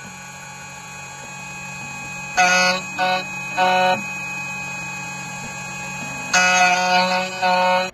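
2M2 Tank CNC key cutting machine running a cut: the spindle motor hums steadily, and a louder, higher whine comes in short stretches, three about two and a half to four seconds in and two more near the end, as the cutter bites into the key blade.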